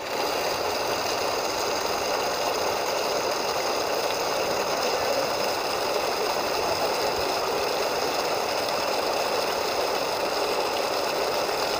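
Water gushing in a thick, steady stream from a submersible pump's outlet pipe and splashing onto the ground: an unbroken rushing noise.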